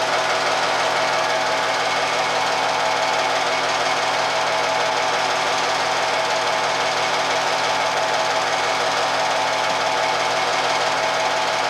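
Film projector running: a steady, fast mechanical clatter with a whirring hum that does not change.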